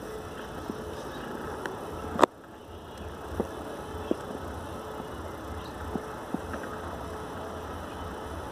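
Steady outdoor background rumble and hiss with a faint hum, broken by scattered small clicks from the handheld phone. There is one sharp, loud click a little over two seconds in, after which the background briefly drops.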